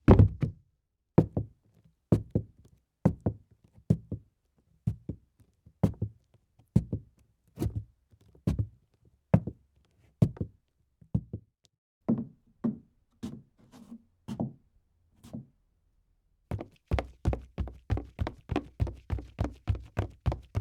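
Footsteps on hardwood. A boot landing from a jump, then dress shoes climbing wooden stairs slowly at about one step a second, then high heels scuffing. After a short pause, leather sandals run at about three to four steps a second.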